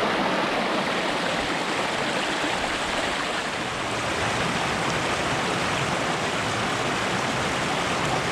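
A small creek running, giving a steady, even rush of flowing water.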